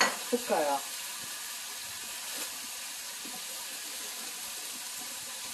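Thin slices of beef brisket sizzling in a hot wok: a steady, even hiss.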